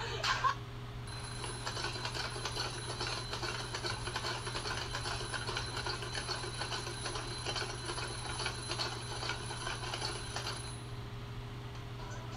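A mechanical bell alarm clock ringing in a fast, even metallic clatter that starts about a second in and stops shortly before the end, heard played back over a steady low electrical hum.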